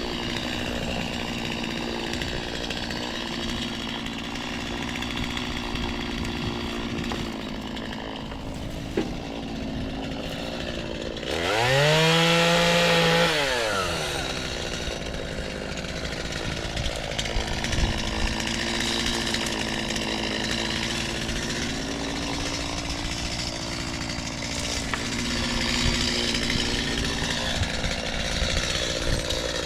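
Chainsaw engine idling, revved up hard once about eleven seconds in for two or three seconds, then dropping back to idle; it starts to rev again at the very end.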